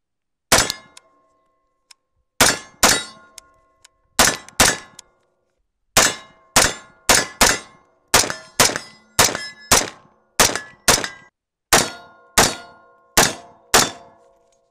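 A 7.62 AR-pattern rifle firing about nineteen shots, mostly in quick pairs a half-second apart. Each shot is followed by a short metallic ringing, from hits on steel targets.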